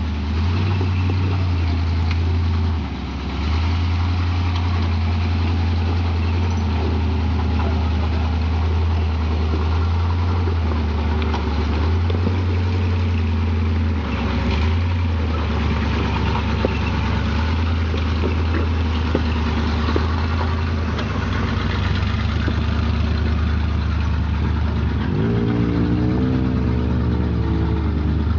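Lifted square-body Chevrolet Blazer's engine running at low revs as the truck crawls over rocks, with scattered clicks and knocks from the rocks and running gear. The engine note rises and falls briefly near the end.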